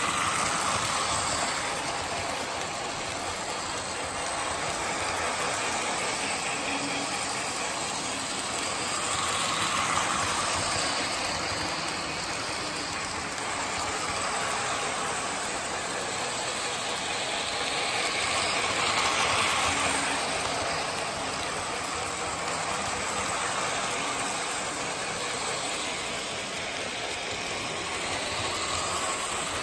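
Lionel model trains running on track laid over carpet: a steady rattling hum of wheels and motors that swells and fades as a train passes close, about every nine seconds.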